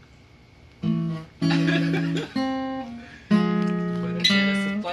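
Steel-string acoustic guitar, a Cort dreadnought, strummed: after a short pause, five chords struck one after another about a second apart, each left to ring.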